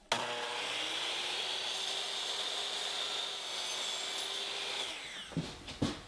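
Power miter saw running and cutting through sapele molding, with a steady motor whine. About five seconds in the motor spins down with a falling whine, followed by a few sharp knocks.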